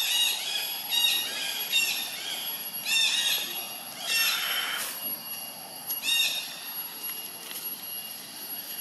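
Short, high, arching chirp calls repeat roughly once a second, with a brief noisy burst about four seconds in, over a steady thin high whine.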